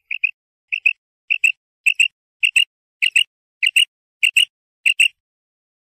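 Female common quail calling: a steady series of about nine short double notes, each pair roughly half a second apart, stopping about five seconds in. This is the female's call that hunters use to draw in male quail.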